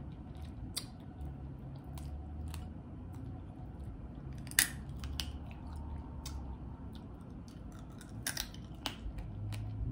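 Boiled crawfish being cracked and peeled by hand, with chewing: scattered sharp clicks and cracks of shell, the loudest about halfway through and a few more near the end, over a low steady hum.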